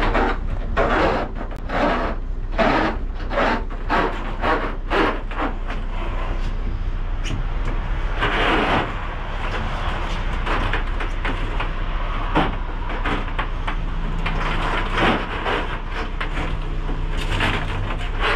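Flexible corrugated plastic conduit rubbing and scraping against a van's bare metal wall as it is fed and pulled by hand: a quick series of short scrapes, then steadier scraping with a few louder strokes.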